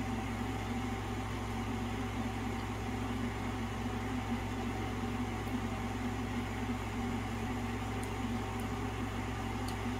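Steady low mechanical hum of room background noise, with a faint steady whine above it and no change throughout.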